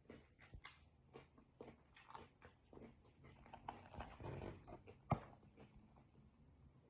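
Close-up eating sounds: irregular wet chewing clicks and smacks, with a brief rustle about four seconds in and a sharp click about five seconds in.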